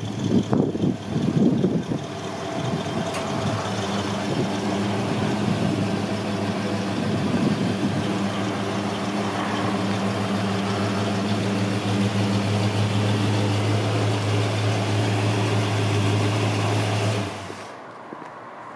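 1963 Chevrolet C-10 pickup's 283 cubic-inch V8 with a four-barrel carburettor, running unevenly for the first couple of seconds, then idling steadily. The idle sound drops away sharply near the end.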